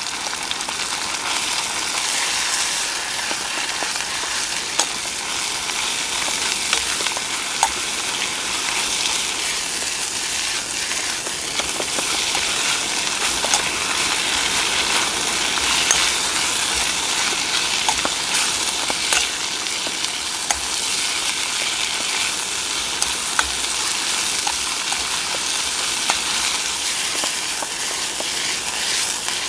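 Food frying in a hot pan: a steady sizzle with scattered small pops and crackles.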